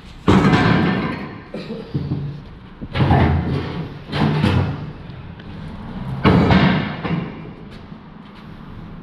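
Heavy metal scrap pieces clanging as they are thrown down onto a pile, four loud hits, each ringing out for about a second.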